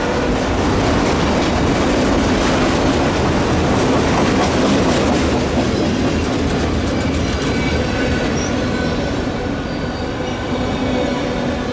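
Freight train of autorack cars rolling past close by: a loud, steady rumble and rattle of steel wheels on the rails, with rapid clicking of wheels over rail joints in the middle.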